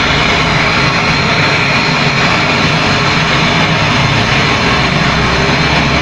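Refrigeration vacuum pump running steadily while it evacuates a refrigerator's sealed system, mixed with the hiss of a brazing torch flame on the refrigerant tubing.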